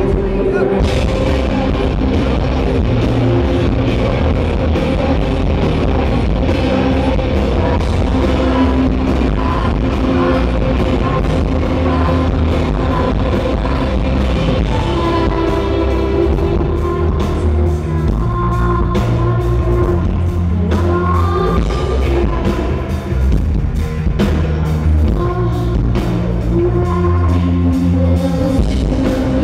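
Live indie rock band playing through a concert PA, heard from the crowd: electric guitars, bass and drum kit with a woman singing.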